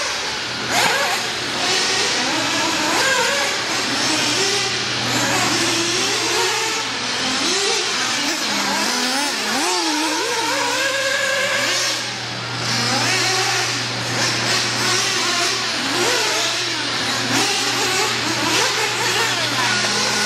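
Several radio-controlled off-road buggies racing on a dirt track, their motors whining up and down in pitch as they accelerate and brake. A steady low hum runs beneath.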